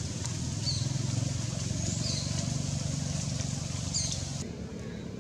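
A low, steady engine hum from a motor vehicle, with a few short, high bird chirps over it.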